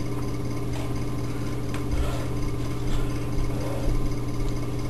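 Steady low electrical hum with a few faint knocks.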